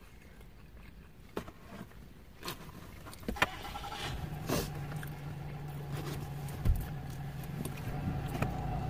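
A motor vehicle engine hum comes in about three seconds in and grows slowly louder, steady in pitch, with a few faint clicks over it.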